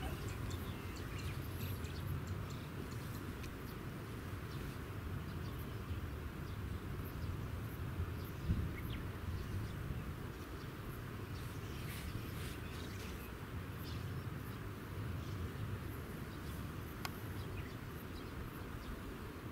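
Rural outdoor ambience beside a field: a steady low rumble with a faint hiss, and scattered faint insect or bird chirps.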